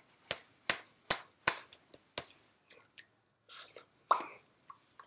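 Sign-language signing heard as sharp slaps and taps of the hands striking each other and the body, about half a dozen in the first two and a half seconds, mixed with breathy mouth sounds and puffs of breath.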